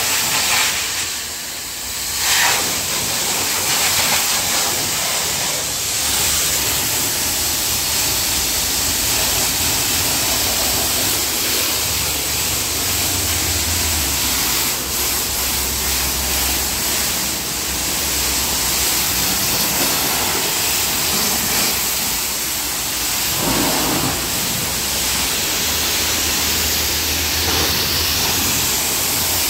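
High-pressure water jet from a pressure-washer lance hissing steadily as it blasts the car's wheels, bumper and the wet concrete beneath, with a brief drop in level about a second in.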